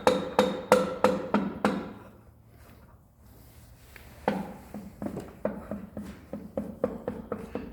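Light, quick taps, about three a second, with a short ringing tone: a piston being tapped down through a ring compressor into the cylinder of an Iveco EuroTrakker engine. The tapping stops about two seconds in and starts again a little past the middle.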